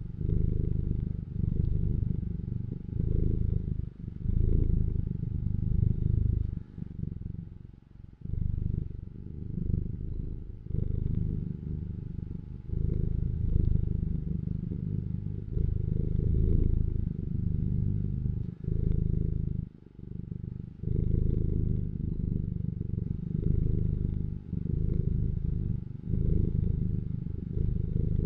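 Domestic cat purring: a low, even rumble that dips briefly between breaths every one to two seconds.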